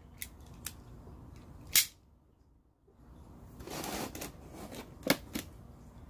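A box cutter and a plastic blister pack being handled: a few sharp clicks, the loudest about two seconds in and another near five seconds, with a short rustling scrape about four seconds in.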